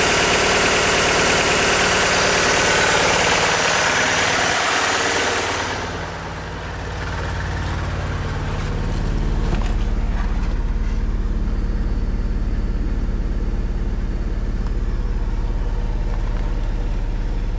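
1999 Mitsubishi Eclipse 420A four-cylinder engine running at raised revs, then dropping back about six seconds in and settling into a steady, lower idle. The engine is misfiring, and the owner does not know the cause.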